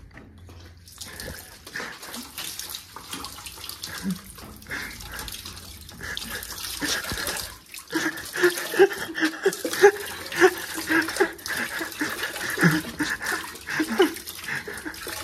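Water running from a wall tap and splashing off a hand onto a concrete floor. It starts about a second in, with irregular splashes throughout.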